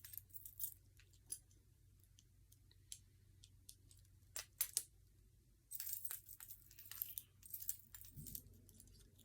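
Faint metallic clicks and clinks of steel chain handcuffs being handled and unlocked, scattered at first and coming thicker in the second half.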